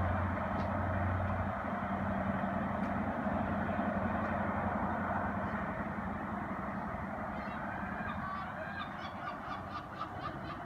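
A train's steady rumble fading away down the line, its low hum dying out in the first two seconds. From about eight seconds in, a run of honking bird calls repeats several times a second.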